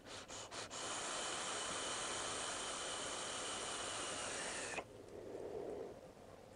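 A person vaping: a few short puffs, then a long steady hiss of breath and vapor that cuts off sharply about five seconds in, followed by a softer, lower breathy rush.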